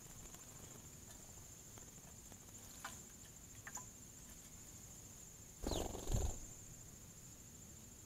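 A short flurry of two quick whirring bursts about six seconds in: a house sparrow's wings as it flies up off the bird bath. A few faint splashy ticks come just before, about three seconds in.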